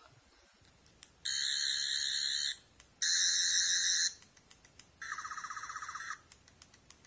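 Toy Eleventh Doctor sonic screwdriver with a green light, sounding its electronic buzzing effect three times for about a second each. The third buzz is softer, with a fast warbling pulse.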